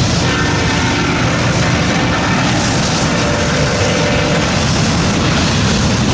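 CSX auto train rolling past: a steady, loud rumble and hiss of the train in motion, with faint high-pitched steady tones over it.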